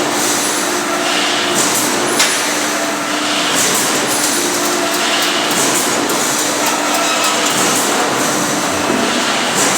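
Automatic mesh welding line running: a steady machine hum with short high-pitched bursts repeating roughly once a second and a sharp knock a little over two seconds in.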